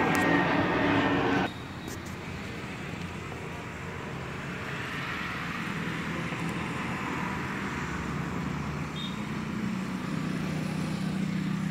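Steady vehicle engine and road noise with a low hum that grows slowly stronger. A louder, noisier stretch cuts off abruptly about a second and a half in.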